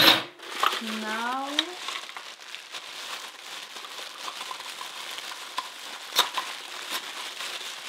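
Thin plastic wrapping crinkling and rustling as hands pull it off a pair of rice spoons, with a sharp knock at the start and a couple of louder crackles near the end.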